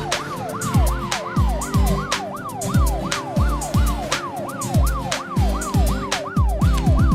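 Electronic background music: a heavy kick drum about twice a second and ticking hi-hats under a siren-like synth wail that sweeps up and down a few times a second.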